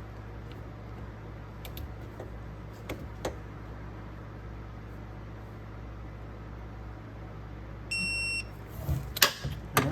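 A single electronic beep about half a second long, near the end, from a digital torque wrench signalling that the 40 foot-pound setting has been reached. Several sharp clicks and clunks from the wrench and socket being handled follow it, with a few faint clicks earlier.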